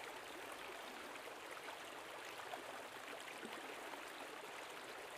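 Creek flowing steadily: a faint, even rush of running water.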